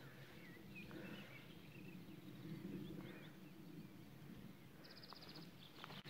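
Near silence: faint outdoor ambience with a few faint, scattered bird chirps, and a short high trill about five seconds in.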